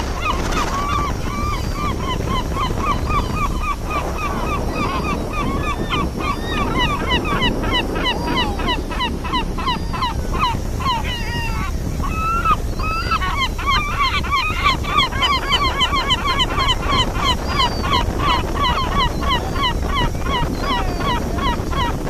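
A flock of gulls calling nonstop, many short rising-and-falling cries overlapping, busiest in the second half. Beneath them runs a steady low rumble from the ship's engine and the wind.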